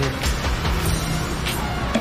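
Music with held tones over a low bass line.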